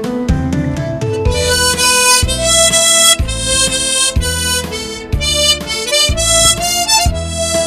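Harmonica playing a slow melody over a backing track, with bass notes about once a second beneath it.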